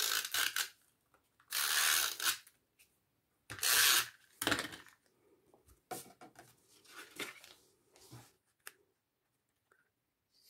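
Snail adhesive tape runner being pulled across cardstock in about four short strokes during the first five seconds, followed by fainter paper-handling noises.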